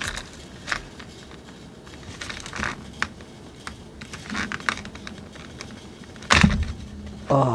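Plastic blister and cardboard toy packaging crinkling and clicking in short bursts as a die-cast helicopter is pried out of it, with one louder knock about six seconds in.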